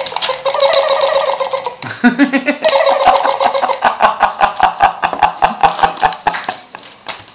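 Minion toy figure playing its recorded high-pitched giggling and chatter through its small speaker. It starts with a drawn-out sound, then runs into quick repeated giggles, several a second, that fade near the end.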